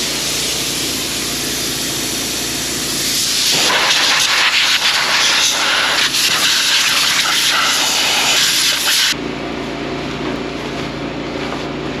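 Loud, steady rushing hiss of air, growing louder a few seconds in and cutting off abruptly about nine seconds in. A steady machine hum follows.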